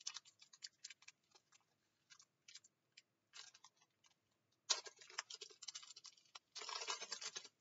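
Match Attax trading-card pack wrapper crinkling in gloved hands as it is torn open: faint scattered crackles and clicks, then two denser bursts of crinkling in the second half.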